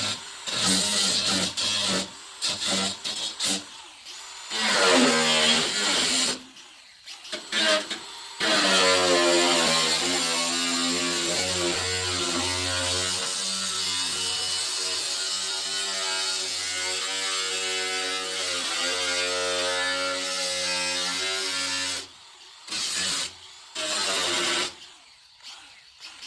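Handheld power tool cutting rusted sheet metal on the truck body: several short bursts, then one long steady run that wavers slightly in pitch under load and stops suddenly, then two more short bursts near the end.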